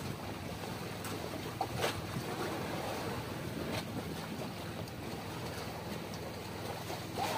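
Steady wash of sea and wind around a small wooden outrigger boat, with a few light knocks.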